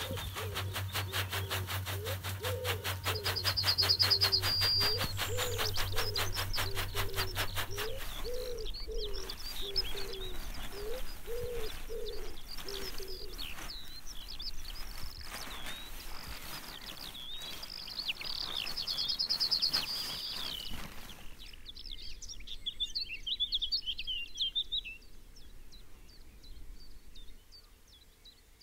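Birds singing and chirping, with high trills and a run of low repeated calls in the first dozen seconds. Under the birdsong, a steady low hum with rapid ticking stops about eight seconds in, and the birdsong thins and quietens after about twenty seconds.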